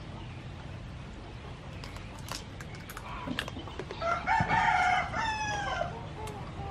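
A rooster crowing once, about four seconds in, a pitched call of about two seconds that falls at the end, with a few sharp clicks shortly before it.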